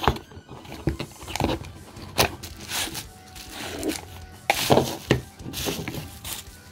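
Hands opening a cardboard box and unwrapping a battery tester from its bubble wrap: a string of irregular scrapes, crinkles and taps.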